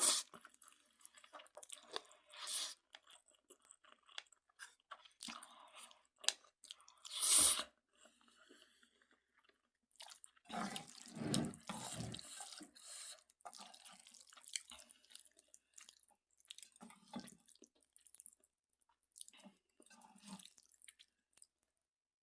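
Person eating Jjapaghetti noodles with Buldak sauce: wet chewing and mouth sounds in irregular bursts, with a loud burst about seven seconds in and a longer cluster around ten to twelve seconds in.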